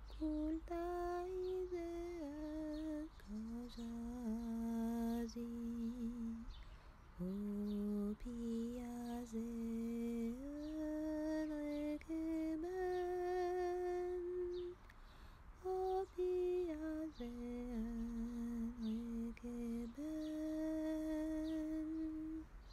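A single voice humming a slow, gentle melody without words, in held notes that step up and down, with a short pause about two-thirds of the way through.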